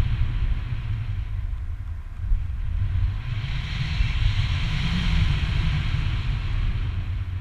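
Wind rushing over an action camera's microphone in flight under a tandem paraglider: a steady low rumble, with a hiss that swells from about three seconds in and eases near the end.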